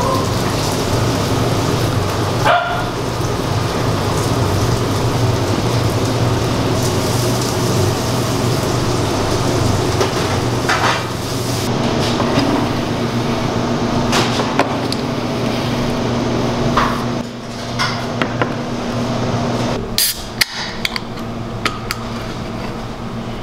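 Restaurant ambience: a steady low hum with scattered sharp knocks and clinks of trays and tableware being handled.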